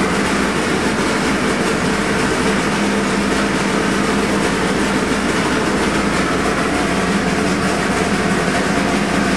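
358 cubic-inch small-block Chevy V8 race engine, converted to EFI, running on an engine dyno at a steady speed around 2,900 rpm. It makes a loud, even drone with no revving.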